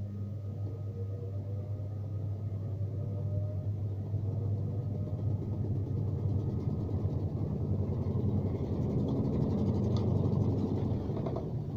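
Gafa 6500 washing machine in its spin cycle: a steady motor hum with a whine rising in pitch as the drum speeds up, then a rough rumbling noise that grows louder, peaking about ten seconds in and easing off near the end. This is the noise the machine makes at spin.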